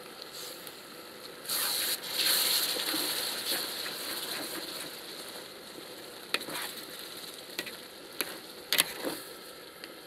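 Rice and hot liquid sizzling in a large paella pan while a spatula scrapes and knocks against the metal as the rice is spread. A burst of hissing begins about a second and a half in and fades over the next few seconds, and there are several sharp knocks near the end.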